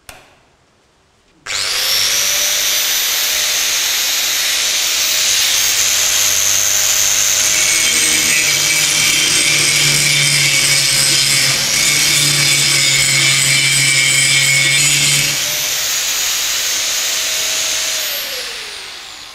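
Bosch GWS 800 4-inch angle grinder with a grinding wheel, switched on about a second and a half in and running with a high whine. From about five to fifteen seconds it grinds down welded joints on a steel channel, louder and rougher under load. It then runs free again and is switched off near the end, its whine falling as the wheel spins down.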